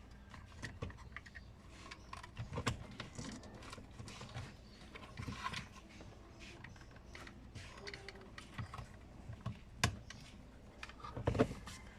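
Scattered plastic clicks and light knocks as a repaired car power-window master switch is handled, fitted and its buttons pressed, with one sharper click about ten seconds in.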